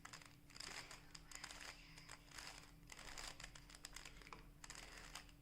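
Faint repeated clicking and scraping of a plastic Rubik's cube as its layers are turned.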